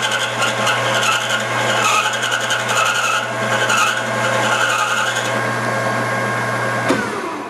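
Metal lathe running with a steady motor hum while the turning tool takes an outside cut along a brass rod, giving a rough scraping cutting noise. Near the end the hum falls in pitch and fades as the lathe spins down.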